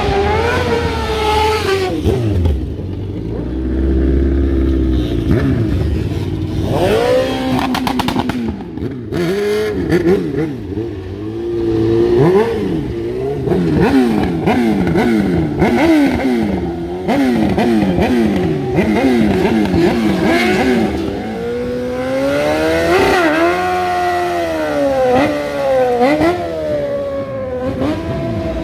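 Motorcycle engines revving hard, their pitch swinging up and down in quick repeated sweeps, about one a second, as the throttle is worked through drifts. Near the end there is a slower, longer rise and fall.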